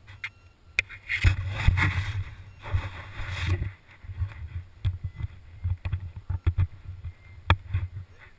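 Mountain bike riding over a dirt trail with the camera on its handlebars. A few sharp clicks come first, then loud rough rubbing and rumble on the microphone for a couple of seconds. After that come irregular low knocks and rattles as the bike goes over bumps.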